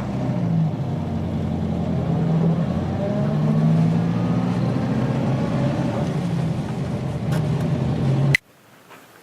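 Road vehicle driving, a steady engine and road drone with slowly wavering pitch, which cuts off abruptly about eight seconds in.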